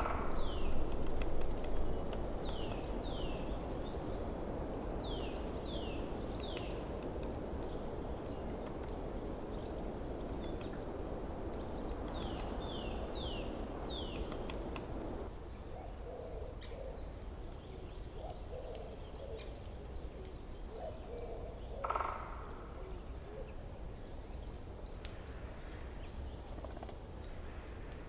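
Forest stream running, with small birds calling over it in short falling chirps, often in pairs. About halfway the water sound drops off suddenly, and birds give rapid trills of high repeated notes, with a single sharp knock between them.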